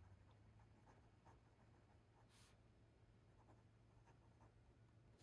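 Faint scratching of a fountain pen's fine steel nib writing on thin Tomoe River paper, with a low steady hum beneath.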